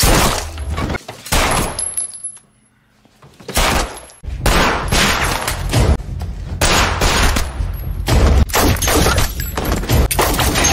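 Gunfire in TV-drama shootouts: two shots, the second about a second and a half after the first, then a brief hush. From about four seconds in comes a rapid run of many shots.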